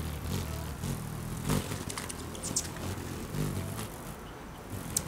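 Anna's hummingbirds giving a few short, high chips as they chase each other at a feeder, around the middle and again near the end, over a steady low hum.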